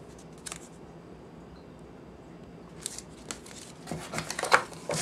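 Hands handling paper and card packaging in a cardboard box. There is one light tap about half a second in, then a run of crisp rustles and taps over the last two seconds.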